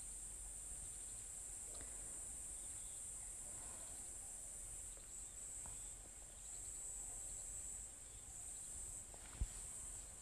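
Faint, steady high-pitched chorus of summer insects that swells and dips slightly, with one brief click about nine seconds in.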